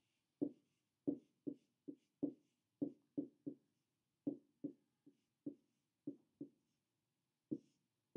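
A stylus tapping and knocking on an interactive whiteboard screen as figures are written: about fifteen short, faint, dull taps at irregular intervals, with a gap of about a second near the end.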